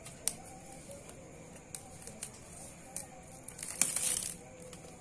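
Smartphone retail box packaging being torn and opened by hand: scattered sharp clicks and crinkles, then a louder tearing rasp about four seconds in.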